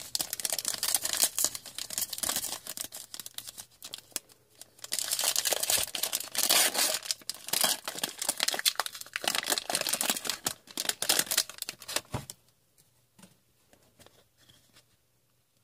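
Foil hockey card pack being torn open, with the wrapper crinkling and rustling. The crinkling stops about twelve seconds in, and it is nearly quiet after that.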